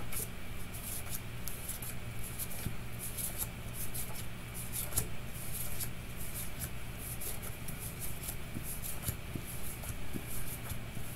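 Stiff paper index cards being flipped through one by one and slid across each other: a run of short papery flicks and rustles over a steady low hum.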